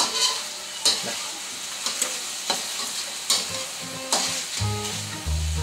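Metal spatula scraping and clinking against a metal wok as diced chicken is stir-fried in a little oil, with a steady sizzle underneath. The scrapes come in a loose series of about six sharp strokes.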